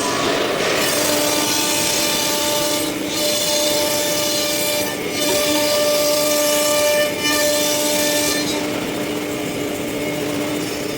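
CNC nesting router's spindle cutting a sheet: a steady pitched whine over rough cutting noise, with the hiss dropping out briefly three times as the tool moves between cuts.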